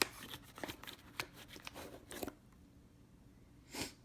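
Packaging and small parts being handled while unboxing: a quick run of small clicks and crinkles for about two seconds, then one louder rustle near the end.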